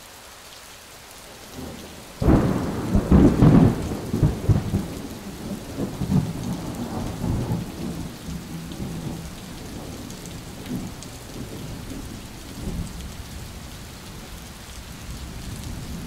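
Thunderstorm: steady rain hiss with a sudden loud thunderclap about two seconds in, rumbling on and dying away over the next several seconds, then rain alone.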